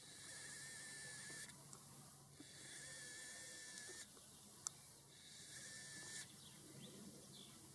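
Faint, slow breathing close to the microphone: a soft hiss with a slight whistle, about every two and a half seconds. A single sharp click comes partway through.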